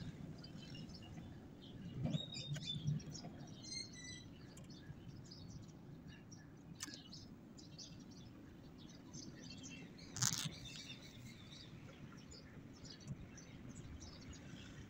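Small birds chirping in the background, many short high calls scattered throughout over a faint steady hum. A few low knocks come about two to three seconds in, and a single sharp click about ten seconds in.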